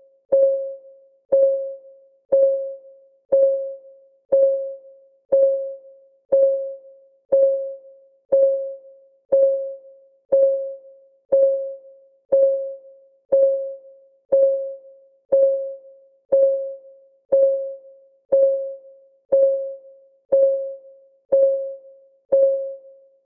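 Clock ticking sound effect: short, pitched tocks, one each second, evenly spaced, each dying away quickly.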